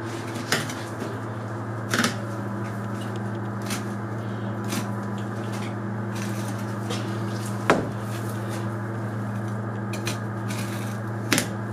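A steady machine hum, with a few sharp clicks and knocks as a butchering knife works meat off a deer carcass's backbone and ribs.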